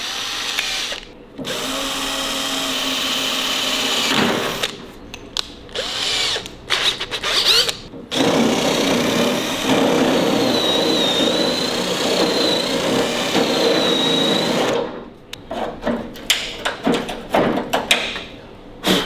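Cordless drill boring into a car door's sheet steel in several stop-start runs, drilling out spot welds; the longest run, about six seconds, carries a wavering high squeal from the bit in the metal. Shorter bursts follow near the end.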